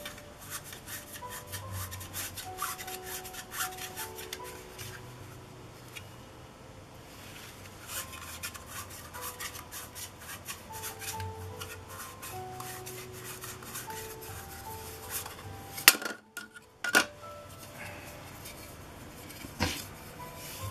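Black plastic petal lens hoods being handled and stacked, with frequent light clicks and rubbing of plastic on plastic, and two sharp louder clicks about sixteen and seventeen seconds in. Soft background music plays throughout.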